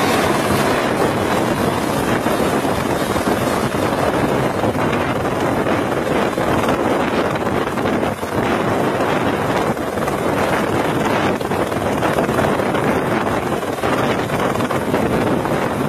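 Light helicopter hovering close by: steady loud rotor and turbine noise, with heavy wind buffeting on the microphone.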